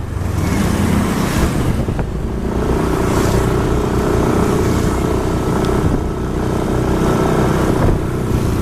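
Vehicle engines running at road speed amid loud road and wind noise, with a steady engine note settling in about two and a half seconds in.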